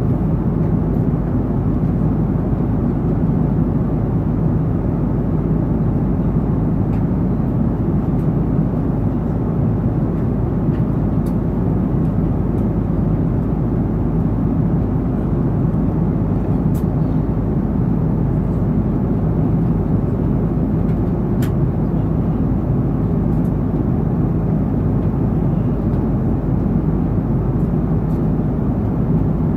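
Steady cabin noise of an Airbus A330-200 in flight: a constant rush of airflow with the low drone of its two GE CF6-80E1A3 turbofan engines.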